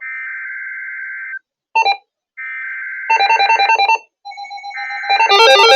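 Emergency Alert System tones for a severe thunderstorm warning: two steady, buzzy data bursts of the alert header, with short electronic beeps and fast warbling tones between them. About five seconds in, a loud electronic alert signal of rapidly alternating tones begins.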